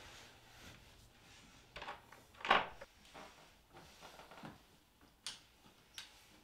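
Quiet room sounds: a few soft clicks and knocks, with one louder, brief scuffing knock about two and a half seconds in and sharper clicks near the end.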